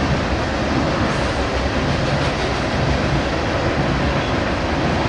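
Freight train rolling past: a steady, loud noise of the cars' wheels on the rails, with a low rumble underneath.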